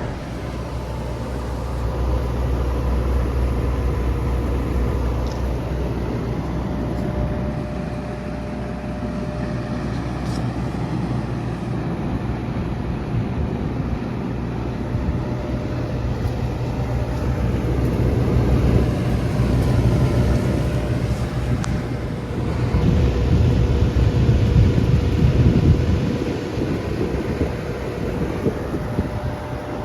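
Bard wall-mount air conditioner running in cool mode: a steady low hum under the rush of its fan, with the rushing air growing louder about two-thirds of the way through.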